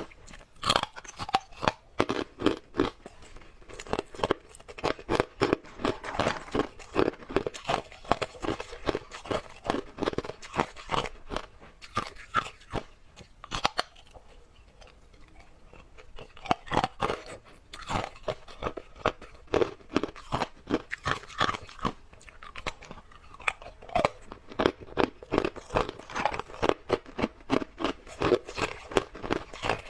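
A person chewing hard ice, rapid loud crunches close to the microphone, with a short pause about halfway through.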